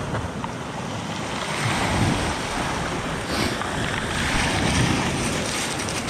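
Black Sea waves washing onto the shore, swelling twice, with wind on the microphone.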